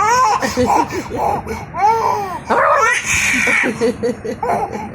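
A baby laughing in repeated high-pitched bursts of giggles and squeals.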